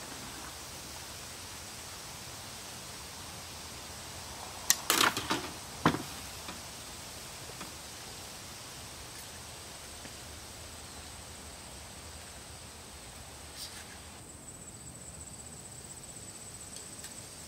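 A quick cluster of sharp knocks about five seconds in, with one more about a second later, over a steady outdoor hiss and a thin high steady tone.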